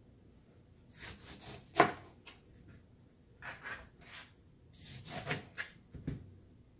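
Chef's knife slicing through peeled pineapple on a plastic cutting board in several separate strokes. A sharp knock of the blade striking the board comes about two seconds in, and a duller knock comes near the end.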